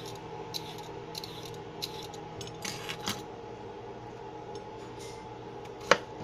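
Hand peeler scraping the skin off a cucumber in several short strokes, over a steady low hum. Near the end comes one sharp knock as a kitchen knife cuts through the cucumber onto the plastic cutting board.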